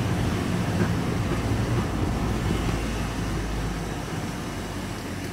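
Vehicle engine and road noise heard from inside the cab while driving slowly: a steady low hum that gets slowly quieter toward the end.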